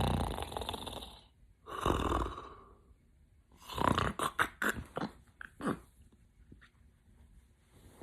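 Snoring: a long rattling snore fading out early, a second shorter snore about two seconds in, then a run of short, sharp snorts and breaths from about four to six seconds in.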